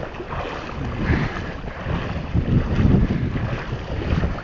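Knee-deep floodwater sloshing and splashing around the legs of a person wading through it, in irregular surges, with wind buffeting the microphone.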